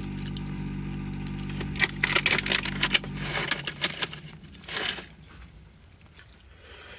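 A steady low machine hum that cuts off about three seconds in. A quick run of sharp clicks and rustles overlaps it, followed by one short rustle.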